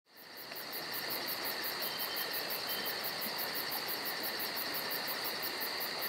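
Chorus of insects trilling steadily, with a fast, even pulsing chirp above the trill, used as nature ambience.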